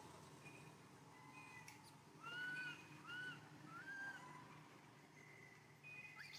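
Three short, faint calls from a baby monkey, each rising then falling in pitch, starting a little over two seconds in.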